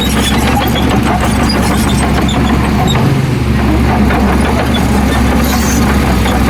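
Heavy diesel engine of earthmoving machinery running steadily with a constant low hum.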